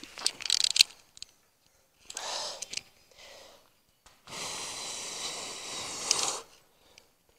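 Heavy breathing during a set of cable pullovers on a cable machine: a quick run of clicks from the machine near the start, a short breath about two seconds in, then a long forceful exhale of about two seconds.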